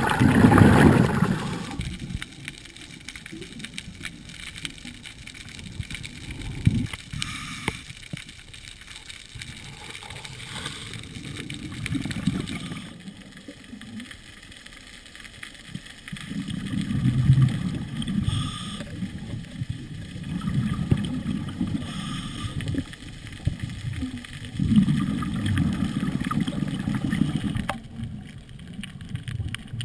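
Underwater sound from a GoPro in its housing: a scuba diver's exhaled bubbles rumbling and gurgling in bursts every few seconds, with a faint hiss between.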